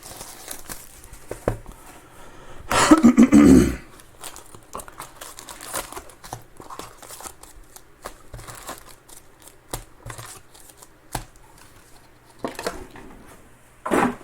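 Card packs being torn open and cards handled: the crinkle and tear of the foil wrappers and light clicks of cards. There is one louder, rougher burst of sound about three seconds in.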